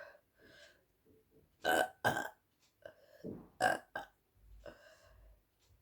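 A woman burping repeatedly: gas from a fizzy apple soda coming up in a string of short burps. The loudest come in a pair about two seconds in and again near four seconds, with a softer, longer one near the end.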